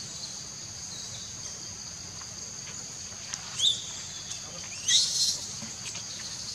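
Steady high-pitched drone of insects, with two short high calls about three and a half and five seconds in, the second the louder.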